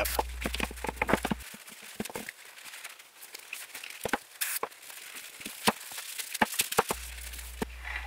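A cloth wiping a hard plastic steering wheel rim, with light rustling and scattered small taps and knocks.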